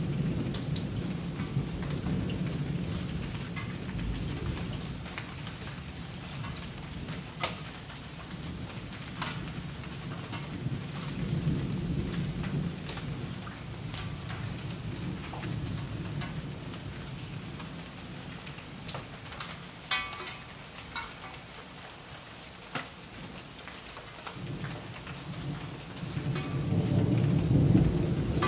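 Steady rain falling during a thunderstorm, with thunder rumbling low, rising and falling and swelling loudest near the end, and a few sharp taps.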